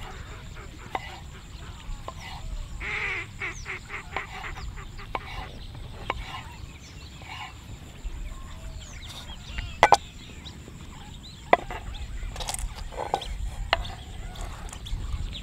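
Knife cutting tomatoes on a wooden chopping board: scattered sharp knocks of the blade on the wood, the loudest a pair about two-thirds of the way through. Birds call in short chirps throughout.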